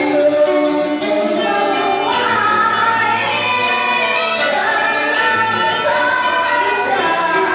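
A woman singing a song with musical accompaniment.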